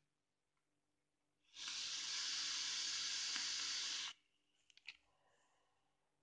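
An electronic cigarette being drawn on: a steady hiss of the coil vaporising e-liquid and air rushing through the atomiser, lasting about two and a half seconds and cutting off sharply, followed by a few faint clicks.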